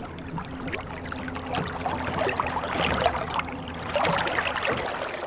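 Water splashing and trickling, with a faint steady low hum underneath.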